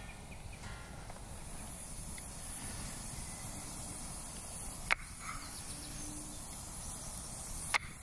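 A knife blade cutting through a potato and knocking sharply onto a wooden chopping board, twice, about three seconds apart, over steady outdoor woodland ambience.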